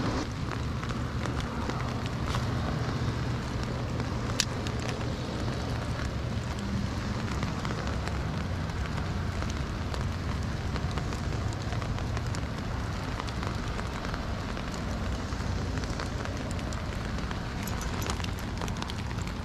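Steady rain pattering on the lake water and the kayak, a dense crackle of many small drops, with one sharp click about four seconds in.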